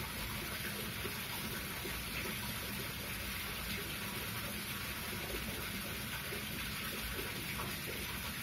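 Steady rushing background noise with a low rumble beneath it, even throughout.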